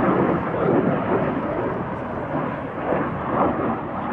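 Jet engine noise from a MiG-21 fighter in a flying display: a steady rumbling rush of noise that starts to fade near the end.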